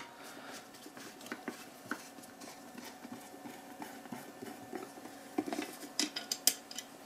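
Small screws and the metal housing of an LED floodlight being handled and unscrewed on a wooden table: faint scattered ticks and scrapes, with a quick run of sharper clicks near the end.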